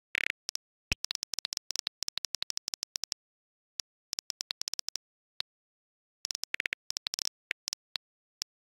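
iPhone on-screen keyboard key clicks: a message typed in quick runs of taps, with short pauses between words and phrases.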